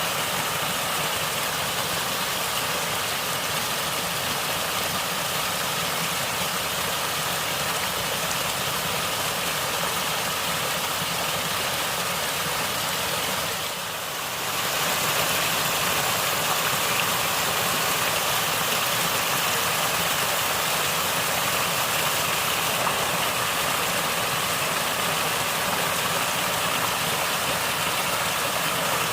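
Steady running water from a natural stream, an even continuous rush. It dips briefly about halfway through, then carries on a little louder.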